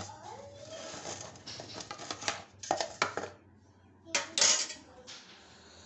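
Stainless steel bowls and a mesh sieve clinking and knocking together as they are handled, with a louder metal clatter a little after four seconds in.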